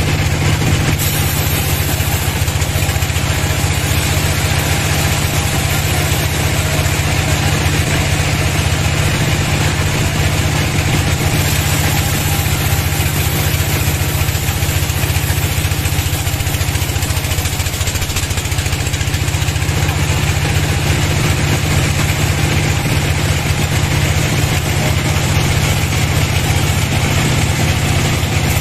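Vertical band sawmill ripping lengthwise through a large hardwood log: a steady low drone from the mill's drive, with the blade's hiss through the wood on top.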